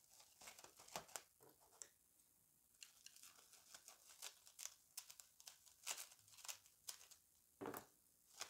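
Faint crinkling and rustling of plastic cling film being pulled off its roll and handled, with scattered small ticks.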